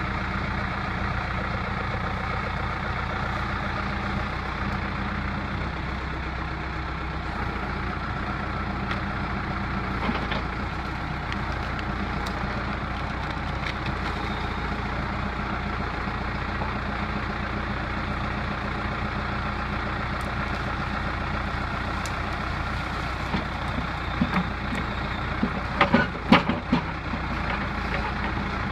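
Caterpillar backhoe's diesel engine running steadily, with a few sharp metallic knocks near the end.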